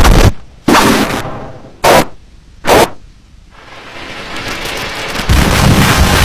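Loud, harsh, heavily distorted noise: three sharp bursts in the first three seconds, a brief quieter dip, then rumbling noise swelling back up about five seconds in.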